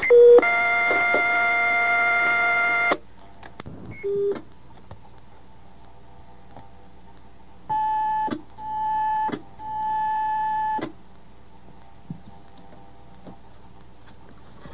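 Fire dispatch radio alert tones over a scanner: a short tone steps up into a longer steady tone of about two and a half seconds, the pattern of two-tone sequential paging. A brief blip follows, then three beeps at one pitch about a second apart, the last one longest.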